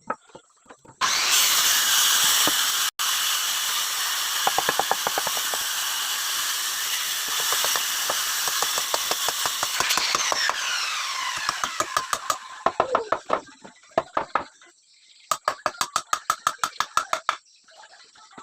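Electric woodworking power tool switched on about a second in, its motor running at a steady high speed, then switched off around ten seconds in and spinning down with a falling whine. Short bursts of rapid rattling follow near the end.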